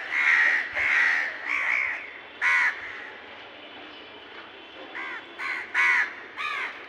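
Crows cawing: a quick run of four harsh caws at the start, a single caw a little after two seconds, and another run of four near the end.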